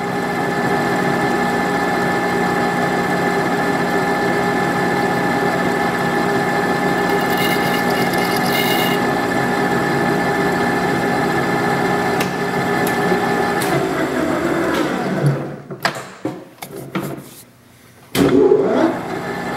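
Monarch engine lathe running with a steady hum while a boring bar cuts a counterbore in the end of a 1144 Stressproof steel shaft. About 14 s in the lathe spins down and stops, and near the end it starts up again with a loud burst.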